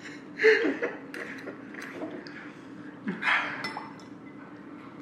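Light clinks of a drinking glass and tableware, with a couple of short, wordless vocal noises.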